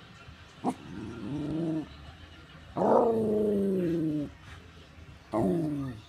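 West Highland white terrier growling and whining at the TV: three drawn-out, grumbling calls, each sliding down in pitch, with the longest and loudest about three seconds in. A short sharp sound comes just before the first call.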